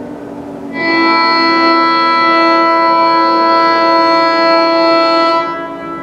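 Federal Signal Modulator electronic siren: its wail is falling away at the start, then a little under a second in it sounds a loud steady alert tone, one pitch with many overtones, held about five seconds before it drops away.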